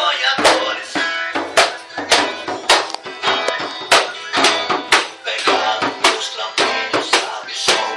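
Music with a steady beat, about two strong hits a second.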